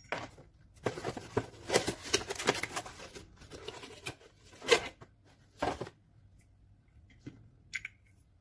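Cardboard parts box handled and moved, with about two seconds of crackly rustling and crinkling. Then come two sharp knocks about a second apart and a few small clicks near the end.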